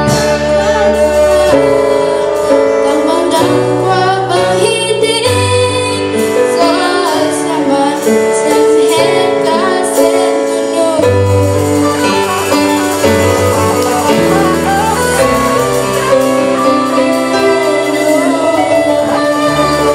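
A group of women singing a song into microphones with live instrumental accompaniment.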